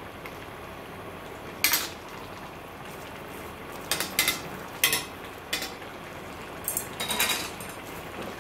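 A metal utensil clinking against a cooking pot: about eight sharp clinks at uneven intervals, a cluster near the middle and another near the end, over a steady low hiss.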